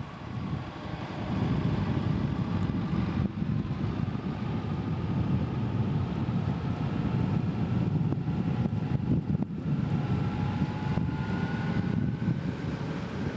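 Low rumble of wind on the microphone and a motor vehicle running steadily at road speed, with a faint whine that rises slowly in the second half.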